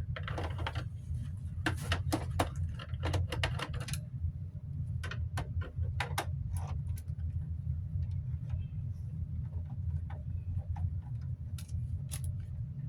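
Irregular clicks and light taps of a small screwdriver working the screws of a plastic fan housing and the housing being handled, over a steady low hum.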